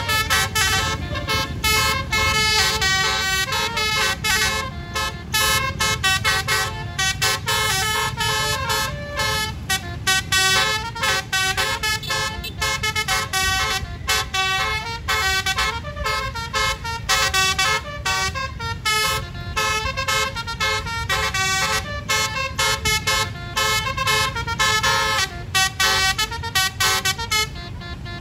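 Bus Basuri multi-tone horn (the Indonesian "telolet" horn) playing a melody of stepped, held notes without a break, over a steady low rumble of engines and traffic.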